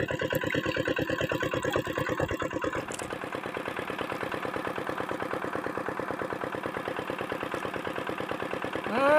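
A small engine running steadily at idle, with an even, rapid putter of about ten beats a second.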